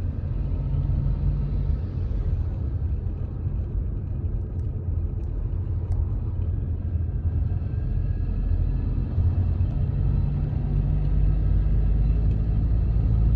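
Steady low road and engine rumble heard inside the cabin of a diesel Mitsubishi Delica D5 on the move, with faint steady tones above it. The rumble grows a little louder about halfway through.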